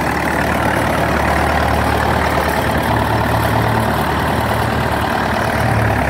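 Circa 1956–57 David Brown tractor's engine running steadily as the tractor is driven slowly along.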